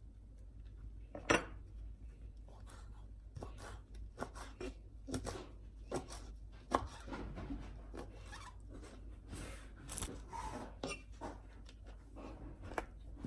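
Knife chopping food on a cutting board in uneven strikes, with a sharper knock about a second in.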